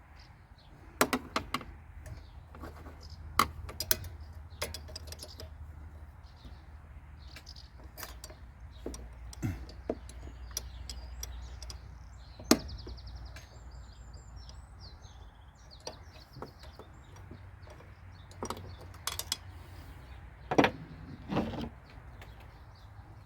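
Scattered sharp metallic clicks and knocks of hand tools and parts being handled, over a low steady hum, with faint bird chirps near the middle.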